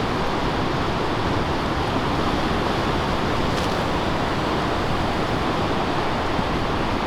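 Steady rush of surf breaking on a river-mouth bar.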